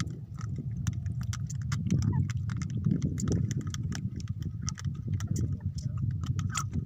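Rapid, irregular clicks and light knocks over a steady low rumble.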